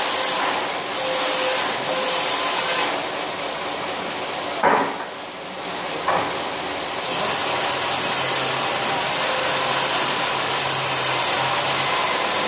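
A large circular saw running with a steady whine, cutting through wood in a few short passes early on and one long cut through the second half. Two sharp knocks come near the middle.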